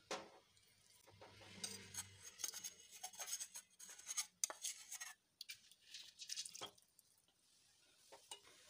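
Steel spoon scraping and clinking against a steel bowl and pan, faint, as sticky jaggery is scraped out into water; the clinks and scrapes die away near the end.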